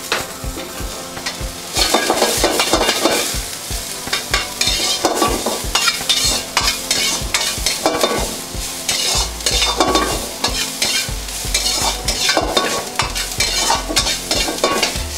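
Chopped onion and capsicum frying in oil in a wok, sizzling, while a metal ladle stirs and scrapes them around the pan with repeated clinks and scraping strokes.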